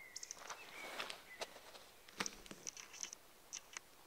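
Eurasian woodcock in roding flight giving faint, repeated sharp high squeaks in short clusters. A single sharp click comes about two seconds in.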